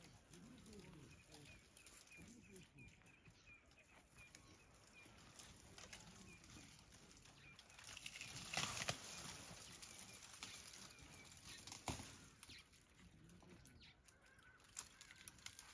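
Quiet bush ambience: a small bird repeats a short high chirp about twice a second, and about nine seconds in a brief rustling crackle of branches comes from an African elephant browsing in the tree.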